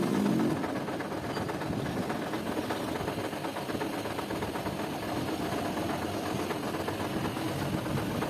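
A machine running steadily with a fast, even rattle, like an engine idling. A low hum on top of it fades out about half a second in.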